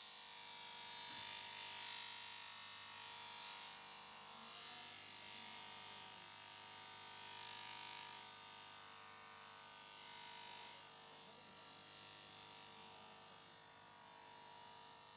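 Faint steady whine of a motor-driven buffing wheel polishing a steel plier, with a hiss that swells and eases several times as the plier is pressed against the wheel.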